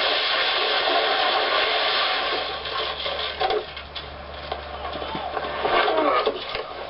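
Car crash: a loud rushing noise of the collision for about two seconds, then it drops away into scattered clicks and small clatter as the wreck settles, over a faint low hum.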